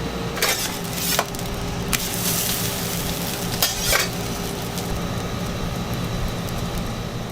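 A folded crunch wrap sizzling steadily as it toasts on a hot cooking surface, with a few sharp clicks of utensils now and then.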